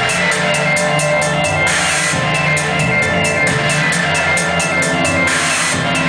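Loud live noise music: a dense, unbroken wall of guitar and electronics over a fast, even pulse of hissing beats, about four to five a second. The pulse drops out briefly twice.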